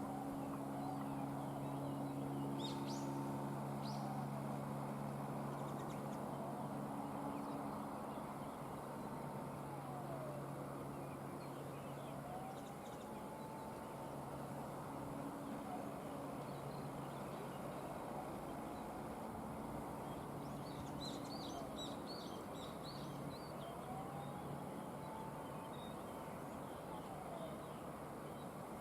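A low, steady hum that fades in and out, with birds chirping briefly about three seconds in and again around twenty seconds in.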